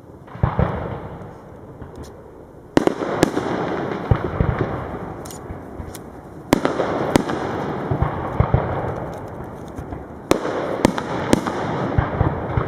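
Aerial firework shells bursting overhead: four big bangs a few seconds apart, with smaller reports among them, each followed by a few seconds of crackle.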